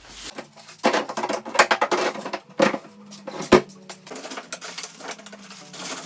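Kitchen food-storage containers clattering as they are handled and set down: a run of sharp knocks and clinks for about three seconds, then lighter handling noise.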